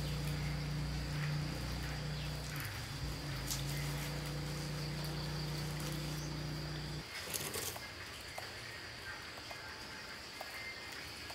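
Insects buzzing steadily on one high note. A low steady hum underneath is the loudest sound and cuts off suddenly about seven seconds in. A few light ticks follow.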